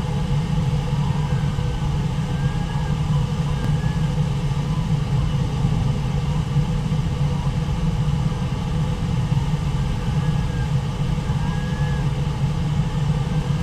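Brooks Falls on the Brooks River: the waterfall's steady low rumble of falling water, with faint short high calls now and then.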